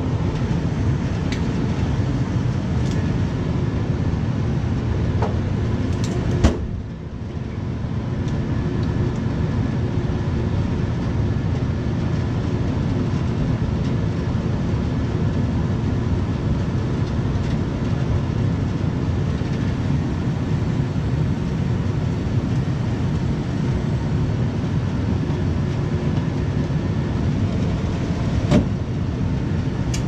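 Air-conditioning equipment running with a steady low rumble and air rush. About six seconds in a sharp click is followed by a brief dip, then the sound builds back up. There is another click near the end.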